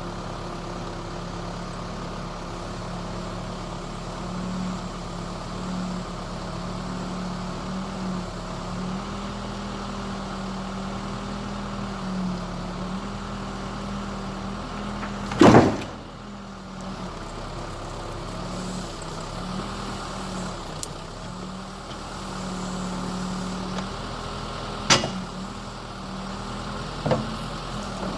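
An engine running steadily at idle, its pitch wavering slightly. A loud sharp knock comes about halfway through, and two lighter knocks follow near the end.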